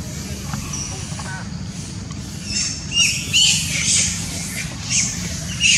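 Macaque squealing: a run of short, high-pitched squeaky cries that bend in pitch, starting about halfway through and loudest near the end.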